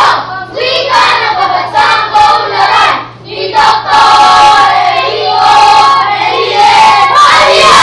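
A group of children's voices singing loudly in unison, with several long held notes.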